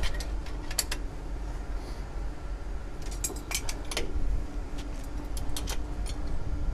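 Irregular sharp metal clinks and taps of a spanner working a hose coupling on the tanker's metal outlet fittings as the discharge hose is tightened on, over a steady low hum.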